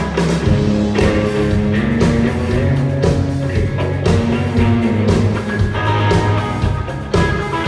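Rock band playing live on stage, drum kit and guitars together, in an instrumental passage with no singing.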